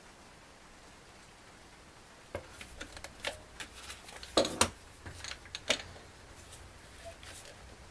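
Scattered light clicks and knocks of clamps and wood pieces being handled during a glue-up. They start a couple of seconds in, with a louder double knock about halfway through.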